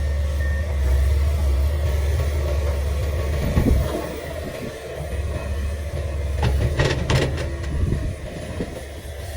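Komatsu PC500LC excavator's diesel engine working hard with a deep steady rumble that eases off about four seconds in, with sharp metallic clanks and knocks, the loudest cluster a little before the end.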